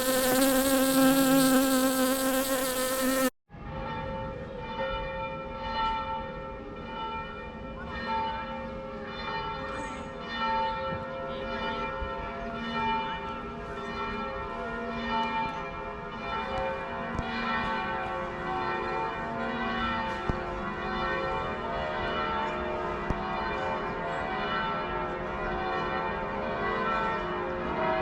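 A loud buzz with a wavering pitch lasts about three seconds and cuts off abruptly. After it, the bells of several churches ring at once in an overlapping, unsynchronised peal that continues throughout.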